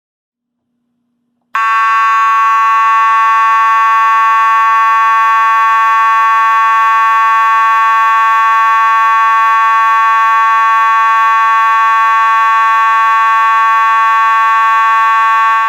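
Space Age AV-34 mechanical fire alarm horn sounding one loud, steady, unbroken tone with no pulsing. It switches on sharply about a second and a half in and cuts off suddenly near the end.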